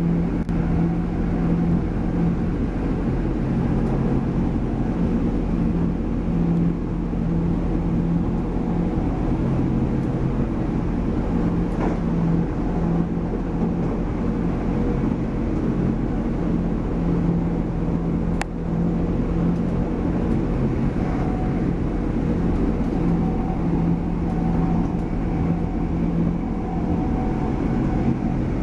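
Diesel train running at speed, heard from inside the carriage: a steady drone with a low engine hum and rail noise. A single sharp click about 18 seconds in.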